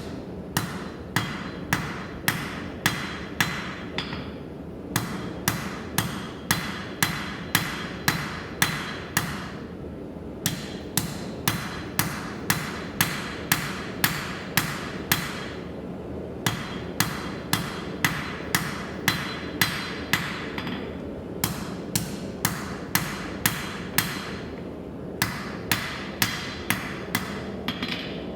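Blacksmith's hand hammer striking metal on an anvil in steady runs of about two blows a second, each blow ringing briefly. There are short pauses between runs, and a steady low hum runs underneath.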